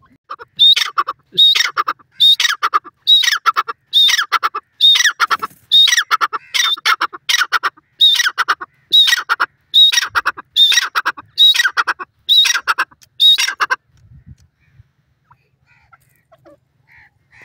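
Female grey francolin calling: about sixteen loud, harsh calls in an even series, a bit more than one a second, each a sharp high note running into a rasp. The series stops about 14 seconds in.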